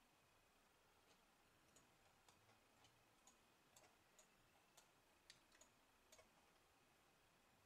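Near silence with faint, irregular clicks, about one or two a second, from someone working a computer.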